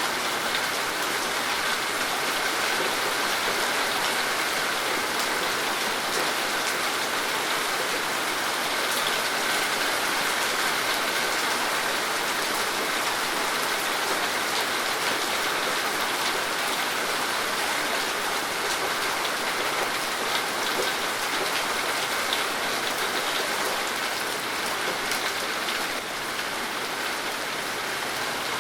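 Steady rain falling: an even hiss of rainfall with many fine ticks of single drops striking surfaces, easing slightly near the end.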